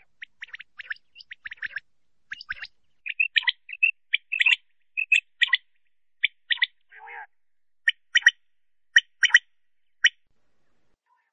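Male quail (batair) calling: short, sharp notes repeated in quick clusters, softer at first and louder from about three seconds in. There is one rougher, lower note about seven seconds in, and the calling stops shortly before the end.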